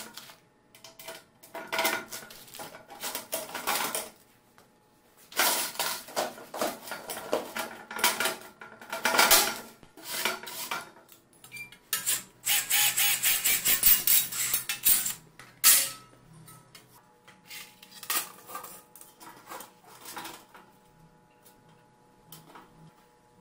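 Sheet-metal panels clanking and scraping as they are handled and fitted, with a cordless drill boring through the sheet metal for about three seconds around the middle, followed by a sharp clank and then light metallic clicks.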